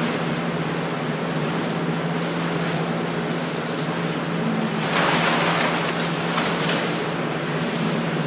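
Rustling of costumes made of shredded paper strips as the performers move and swing, a continuous rushing noise that swells louder about five seconds in, over a steady low hum.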